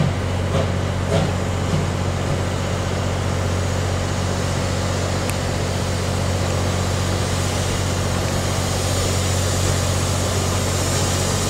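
Steam locomotive turning slowly on a turntable: a steady low mechanical hum, with a few faint knocks in the first two seconds.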